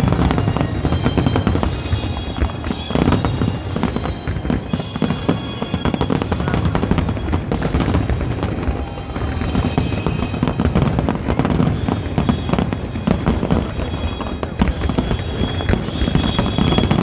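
Aerial fireworks shells bursting in quick succession: a dense, unbroken barrage of booms and crackles.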